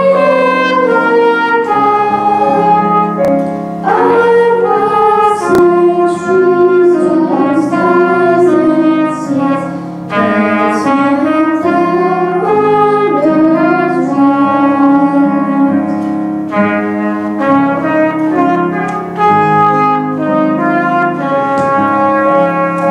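Children singing a hymn with grand piano accompaniment and a trumpet playing the melody along with them.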